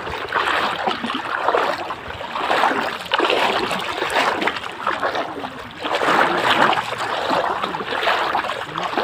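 Fast-flowing floodwater rushing and splashing in a strong current, swelling and easing every second or two.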